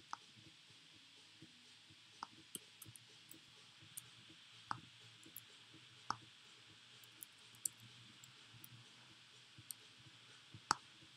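Faint, irregular computer clicks, a dozen or so sharp ticks at an uneven pace from clicking and scrolling, over a low steady hiss.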